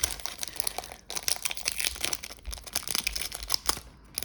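Foil wrapper of a Pokémon card booster pack crinkling as it is handled and torn open: a dense run of small crackles.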